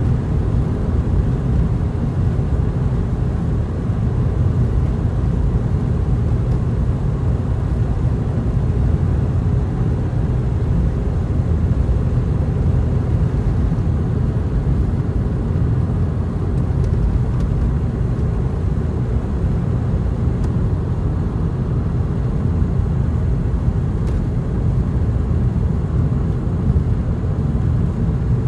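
Steady low rumble of a car driving on an open road, tyre and engine noise heard from inside the cabin.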